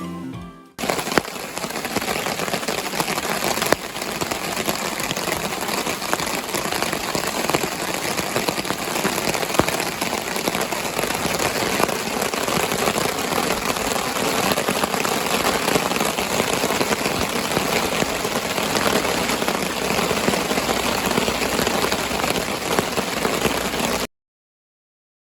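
Heavy rain pouring down in a steady downpour, stopping abruptly near the end.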